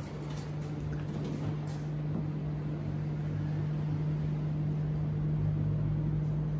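An SUV's engine idling with a steady, even drone.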